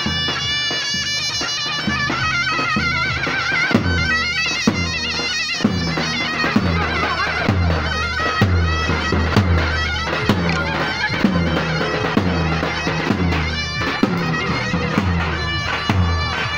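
Live Turkish davul and zurna folk music: the zurna plays a shrill, ornamented melody over the deep beats of the large double-headed davul, whose heavy strokes come in strongly and steadily about four seconds in.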